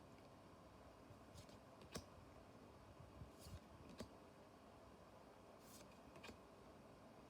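Near silence with a handful of faint, short clicks and soft rustles of trading cards being handled.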